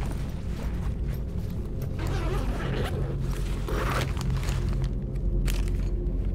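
Rustling and short clicks of objects being handled and put into a fabric bag, over a steady low ambient drone.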